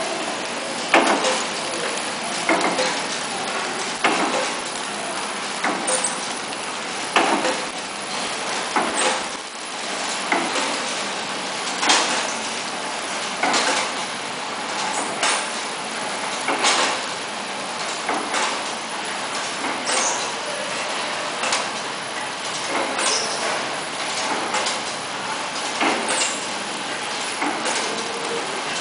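Horizontal flow-wrap packaging machine running, a steady mechanical noise with sharp clacks every second or two.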